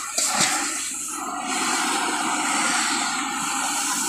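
Wok cooking over a high-pressure gas burner: the burner runs with a steady rushing noise, mixed with frying in the wok. There are a few short scrapes or knocks in the first second.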